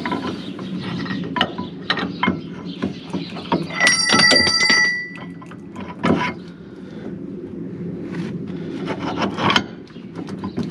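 Steel hitch pin being worked by hand into the tractor's trailer hitch jaw, with repeated metal clicks and knocks. About four seconds in, a piece of steel rings for about a second, like a bell.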